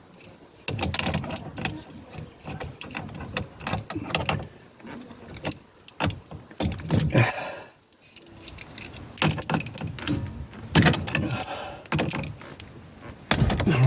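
Irregular metallic clinks, knocks and rattles of hand tools and steel puller parts being handled and worked on a steering wheel.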